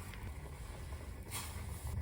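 Wind buffeting the microphone as a steady low rumble over a faint hiss, with one short rush of noise about a second and a half in.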